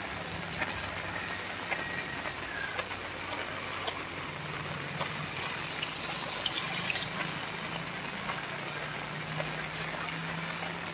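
Heavy rain pouring onto a wet paved road and trees: a steady even hiss scattered with small drop ticks, with a low steady hum underneath.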